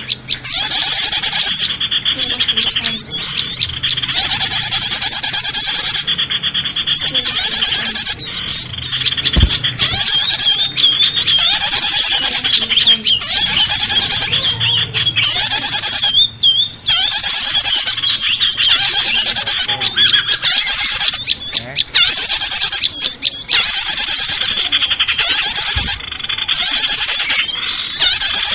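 Bird-luring recording: a loud, dense chorus of many small birds chirping, trilling and squawking, almost without pause apart from a few brief gaps.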